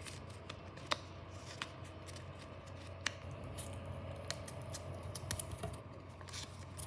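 A sheet of paper handled and folded by hand: soft rustling with scattered sharp crackles and ticks as it is flipped and creased, over a faint steady low hum.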